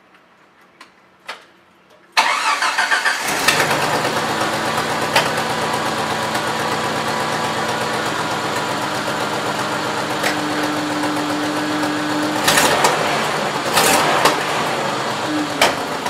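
Jeep Wrangler YJ engine cranked by its starter about two seconds in, catching and settling into a steady idle. The exhaust note carries a leak that the owner traces to the exhaust manifold gasket, and that doesn't sound good.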